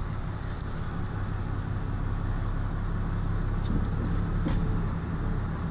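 Vehicle engine running steadily at low speed as it rolls slowly, heard from inside the cabin as a low hum, with a couple of light clicks past the middle.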